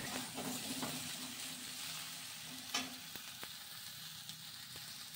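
Cauliflower and potato pieces sizzling as they fry in oil in a steel kadhai, with a flat metal spatula scraping and tapping the pan a few times as they are stirred.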